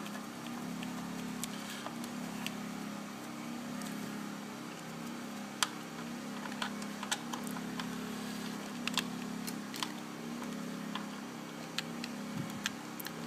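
Irregular light metallic clicks and taps of hand tools and a bolt being worked loose and refitted, with a ground wire's ring terminal put onto it. A steady low hum runs underneath.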